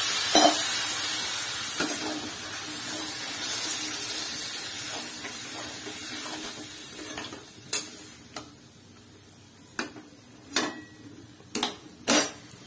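Water poured into a hot pan of frying curry, hissing and sizzling, then slowly dying away over about seven seconds. A metal spatula stirs and knocks against the pan, with several sharp knocks in the last five seconds.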